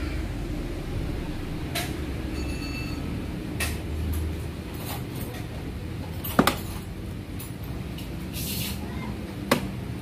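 Hard plastic parts of a Yotta BLF198 children's ride-on jeep being handled and fitted: a few sharp clicks and knocks, the loudest about six and a half seconds in, over a steady low hum.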